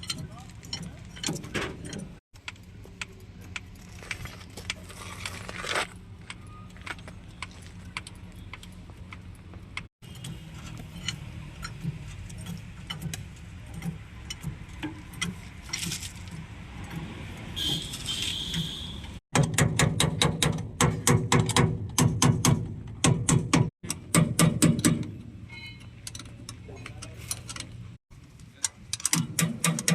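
Hand tools working on truck brake parts: scattered metallic clinks and taps, then a rapid run of loud metal knocks about two-thirds of the way through, and again near the end.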